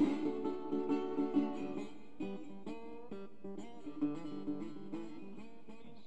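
Resonator guitar played solo in a blues song, plucked single notes and chords with some notes sliding into pitch as with a slide. Busier and louder for the first two seconds, then sparser single notes.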